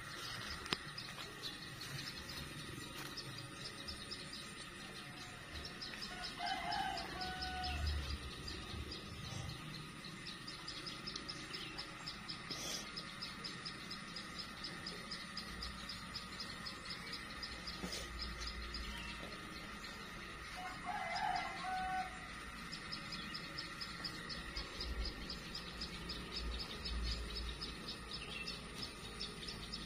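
Rural outdoor ambience of insects chirping in a fast, steady pulse, with a rooster crowing twice, about a quarter of the way in and again about two-thirds through. A low rumble runs underneath.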